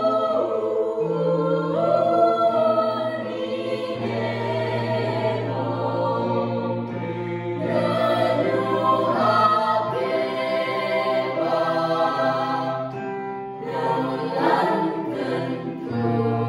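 Mixed youth choir singing in several parts, over long held low bass notes that change every few seconds.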